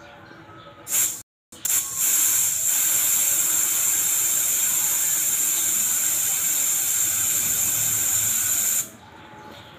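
Air hissing out of a scooter's rear tyre through its valve stem as it is held open: a loud, steady hiss that starts about a second in, breaks off for a moment, then runs on and stops abruptly near the end.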